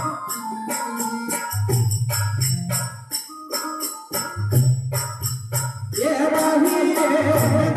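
Amplified devotional song music: jingling metal percussion keeps a steady beat of about three strokes a second over a repeating deep bass pattern. A singing voice comes in about six seconds in.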